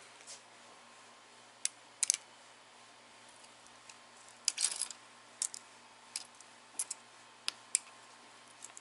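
Light metallic clicks and clinks, about eight of them scattered irregularly, as small steel valve-train parts (springs, retainers and keepers) are handled and picked out of a VR6 cylinder head.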